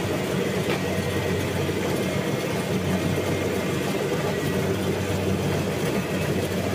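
Diesel engine of a combine harvester running steadily at an even speed, with a constant low hum.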